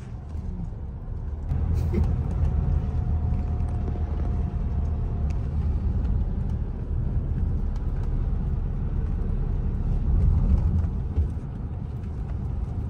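Car driving along a road, heard from inside the cabin: a steady low rumble of engine and tyre noise that gets louder about one and a half seconds in.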